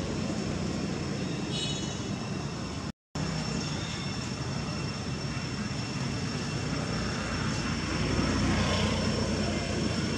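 Steady low outdoor background rumble with a thin, steady high whine over it; the sound drops out completely for an instant about three seconds in.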